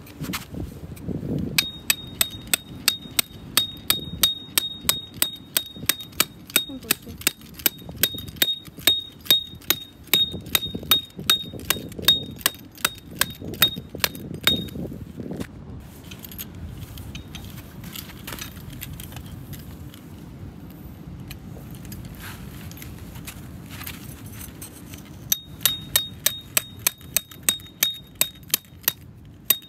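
Camping hammer driving a steel tent peg into hard ground: metal-on-metal blows in quick succession, about two or three a second, each with a high ringing clang. The hammering stops about halfway through and starts again near the end.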